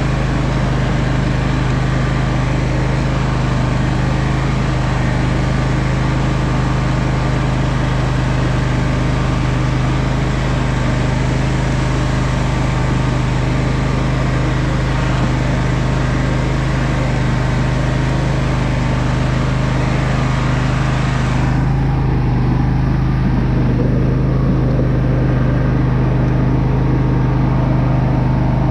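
Simplicity 16 hp lawn tractor engine running steadily at a constant pitch under load as the tractor pulls a log along a trail.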